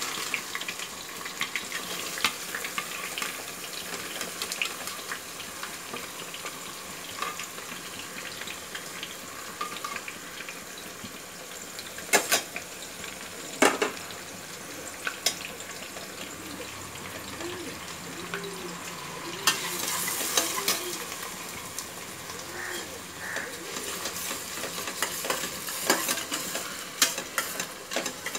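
Chopped onions sizzling in hot oil in a pressure cooker, stirred with a metal spatula scraping the pan. There are two sharp knocks about halfway through and quick clattering strokes near the end.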